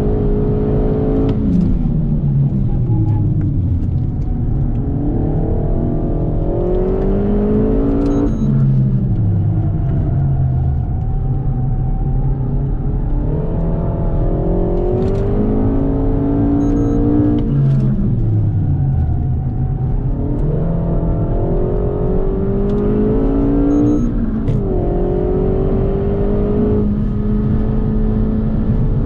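Renault Megane 4 RS Trophy's turbocharged four-cylinder engine heard from inside the cabin at track pace, revving up hard under acceleration and dropping away under braking, four times over. There are brief sharp sounds near several of the changes.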